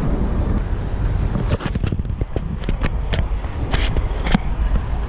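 Wind and road rumble on a bike-mounted GoPro's microphone while cycling, with a handful of sharp clicks and rattles between about one and a half and four and a half seconds in.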